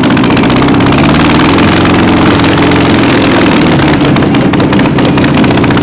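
Unrestored 1954 VW Beetle 36 hp air-cooled flat-four engine running loudly and steadily on a bench stand, just after firing up.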